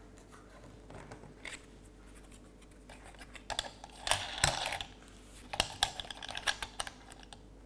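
Light clicks, taps and scratches of a small plastic model railway wagon being handled on a digital scale while a weight and false floor are pressed into it, coming in clusters after about three seconds.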